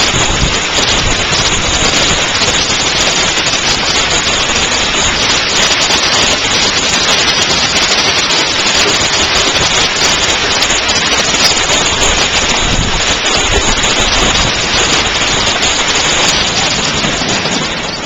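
Hail falling heavily: a loud, steady, dense clatter of ice pellets striking surfaces, mixed with the hiss of rain.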